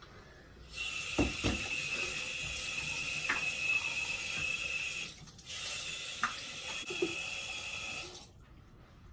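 Bathroom sink tap running into the basin: turned on about a second in, cut off briefly about five seconds in, then on again until shortly before the end, with a few knocks against the basin.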